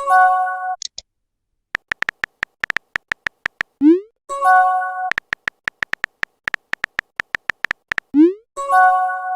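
Phone messenger sound effects: bursts of quick, even typing ticks, each followed by a short rising swoop and a bright chime chord as a message is sent or arrives. The cycle runs about every four seconds, with chimes at the start, about four seconds in, and near the end.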